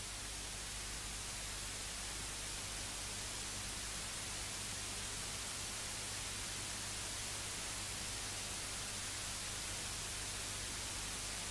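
Steady hiss with a faint low hum, unchanging throughout: the background noise of the room and recording, with no distinct marker strokes.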